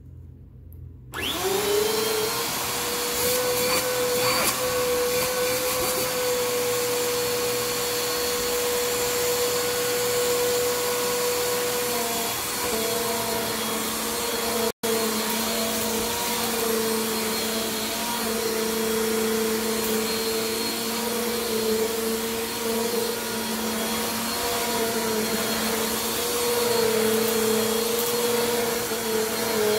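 Bissell PowerForce Compact Turbo upright vacuum's 6.2-amp motor switched on for a test run after reassembly. It starts about a second in and spins up to a steady whine. About twelve seconds in, a second, lower hum joins it as the vacuum is tipped back to run on the carpet.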